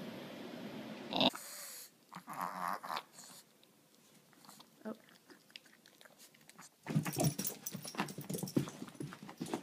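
Dog sounds across short cuts, then a dense run of quick knocks and scuffles from about seven seconds in.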